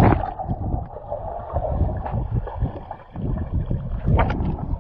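Muffled churning and bubbling water around a phone carried underwater by a swimmer, uneven, with short louder surges at the start and about four seconds in.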